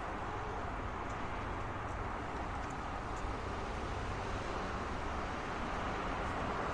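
Steady road traffic noise: a continuous wash of passing cars with a low rumble underneath and no single vehicle standing out.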